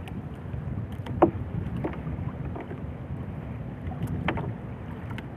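Wind buffeting the microphone with a steady low rumble in a small boat on open water, broken by a few sharp knocks and taps, the loudest a little over a second in.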